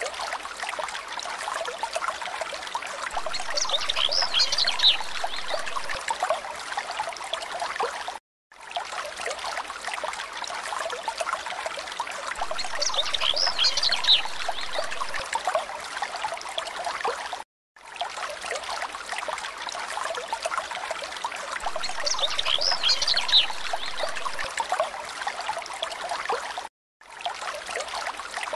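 A looped recording of a trickling stream. The same stretch of about nine seconds repeats three times, with a brief cut to silence between passes, and each pass carries a short high chirp partway through.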